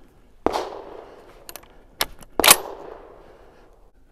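Rock Island Armory VR80 semi-automatic 12-gauge shotgun firing two shots of high-velocity 2¾-inch buckshot about two seconds apart, each report trailing off in an echo, with a couple of sharp clicks between them.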